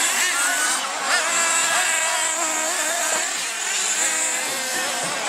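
Several nitro RC buggies and truggies racing, their small engines whining at high revs and overlapping, the pitch rising and falling again and again as they accelerate and back off through the turns.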